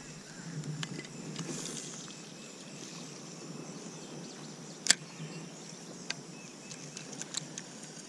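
Spinning reel and rod handled during a cast: a sharp click about five seconds in, then a few fainter clicks. Under them runs a steady high buzz of insects.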